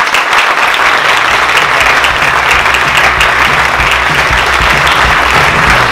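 Audience applauding steadily, with music coming in underneath about a second in.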